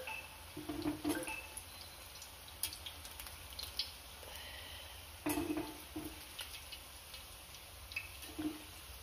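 Unniyappam frying in hot oil in a multi-hollow appam pan, a soft steady sizzle, with steel tongs clicking and knocking against the pan and a wire strainer several times as the fried balls are lifted out.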